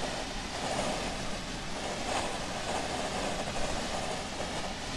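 Steady driving noise inside a truck cab at highway speed: engine hum, tyre roar and wind blending into an even rumble.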